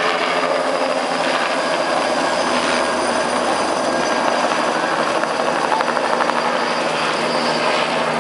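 Light helicopter lifting off a helipad and flying away, its turbine and rotor running steadily. A rapid rotor beat comes through about five to six seconds in.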